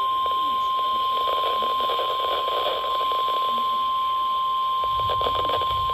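NOAA Weather Radio warning alarm tone: a single steady high tone near 1050 Hz over radio hiss. It is the signal that a warning is about to be read, here a special marine warning. A low rumble joins about five seconds in.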